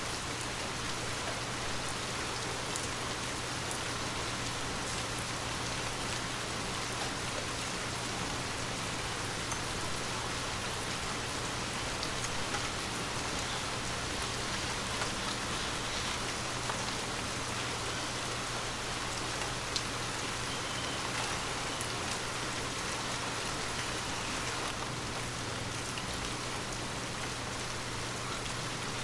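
Steady rain falling, a continuous even hiss with scattered individual drops ticking on a hard surface, over a faint low steady hum.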